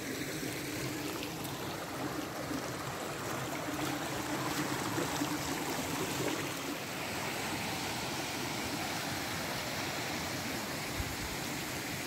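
Shallow stream running over rocks, a steady rushing of water.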